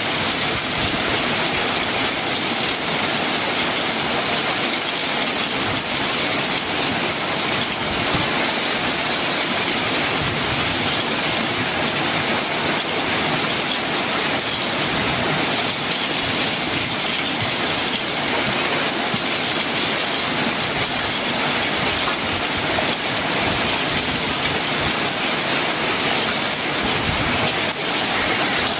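Very heavy rain pelting a corrugated metal roof and pouring off its edge: a dense, steady hiss that does not let up.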